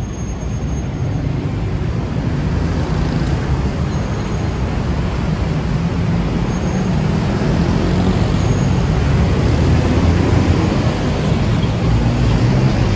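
Busy city road traffic: cars and motorbikes passing at an intersection, a steady low rumble that grows a little louder in the second half.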